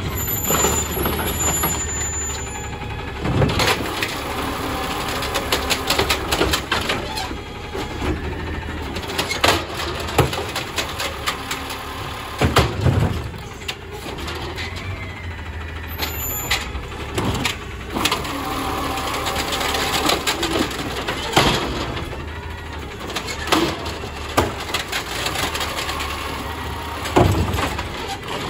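Automated side-loader garbage truck at the curb: the diesel engine runs steadily while the lifting arm works, with a whine in places and a dozen or so sharp clanks and bangs as carts are gripped, dumped and set down.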